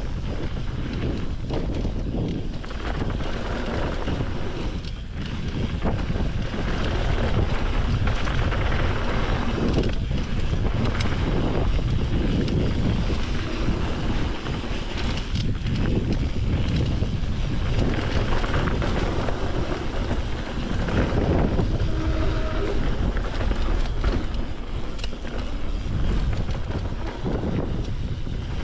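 Wind rushing over the microphone of a mountain bike riding down a dirt trail, over the low rumble of tyres and bike. The rush rises and falls throughout.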